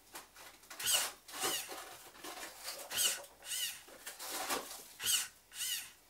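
Hobby servo motor whining in short, rising-and-falling bursts that come in pairs, about every two seconds: one stroke squeezes the resuscitator bag and the next one releases it.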